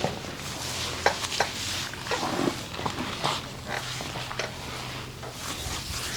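Hands rubbing and sliding over skin during a massage, with a few sharp taps or slaps scattered through it.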